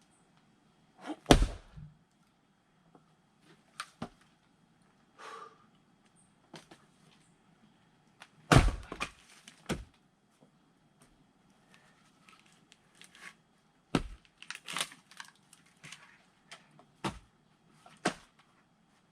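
Firewood being split by hand: sharp wooden cracks and thunks as the blade strikes and splits the rounds. There are two heavy strikes, one about a second in and one about halfway, with lighter knocks of wood in between and several more strikes near the end.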